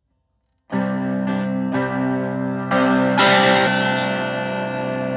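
Electric guitar played through a treble booster pedal into a Fender Twin Reverb-style amp on the edge of breakup, a slightly gritty tone. After a moment of silence, a few chords are struck about a second in, then a louder chord past the middle is left ringing.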